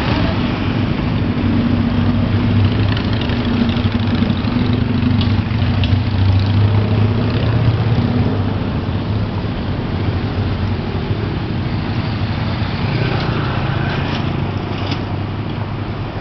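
A vehicle engine running steadily. Its hum grows louder around the middle and eases off toward the end.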